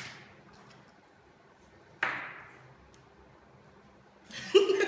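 Beauty products and leaflets being handled on a table: a light tap at the start and a brief rustle about two seconds in. Near the end a woman starts to chuckle.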